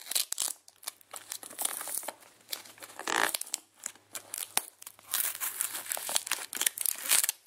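Cardboard shipping box being pulled and torn open by hand: irregular crinkling and tearing, with sharp cracks in between and the busiest tearing about three seconds in and again in the second half.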